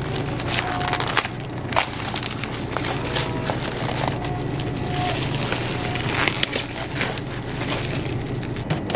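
Clear plastic cling wrap being pulled and peeled off a plastic lunch-box tray, crinkling and crackling continuously with many small snaps. A low steady hum runs underneath.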